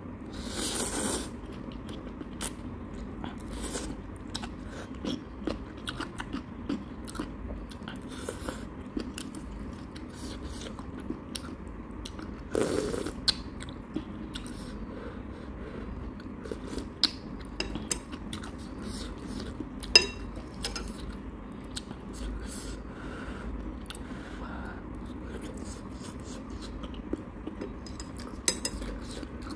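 Close-up eating of Shin ramyun noodles: a slurp of noodles at the start, wet chewing clicks throughout, another slurp about halfway through, and occasional sharp clinks of metal chopsticks and spoon against the bowl.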